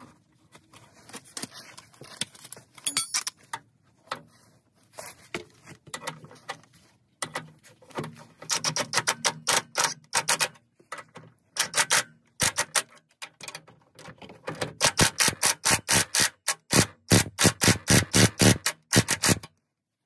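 Socket ratchet clicking in repeated fast runs while the nuts of an exhaust sleeve clamp are tightened down. The first several seconds hold only faint scrapes and clicks; the clicking runs get longer and louder from about halfway in.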